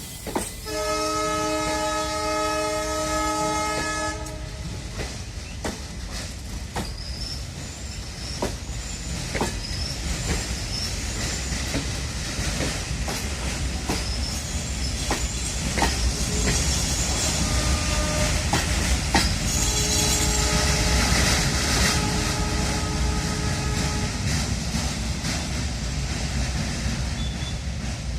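WDG4 diesel locomotive (EMD 16-cylinder two-stroke) departing with a passenger train: a multi-tone horn blast for about four seconds, then the engine humming as the train accelerates, with wheels clicking over rail joints and growing louder. About two-thirds of the way through the horn gives a short toot, then a longer blast lasting several seconds.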